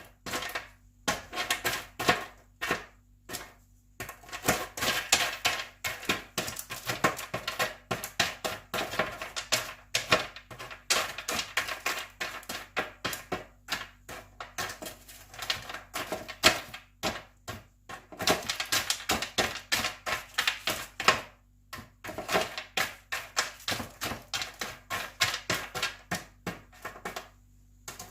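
Quick, irregular clicking and clattering of hard, sugar-coated fried macaroni pieces as they are broken apart and tossed while still warm, with a few short pauses.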